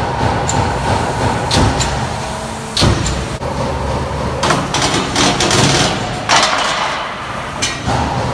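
Finn Power SG5 CNC punch press running with a steady low hum, with irregular metallic clanks and short scraping bursts as punched sheet-metal strips slide off the machine onto a rack.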